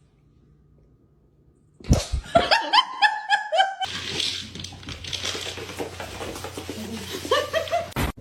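Human laughter: after a brief silence, a burst of quick repeated 'ha-ha' sounds about two seconds in. After that a low steady hum runs under the rest, with a little more laughing near the end.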